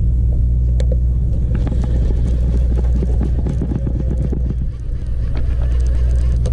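Sport fishing boat's engine running with a steady low drone. About one and a half seconds in, a stretch of rapid clicking and rattling starts and lasts about three seconds, with a single sharp knock near the start.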